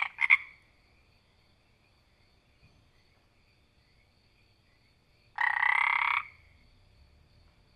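A frog croaking: a short double croak right at the start, then one longer croak of nearly a second about five and a half seconds in, with a faint steady high trill underneath.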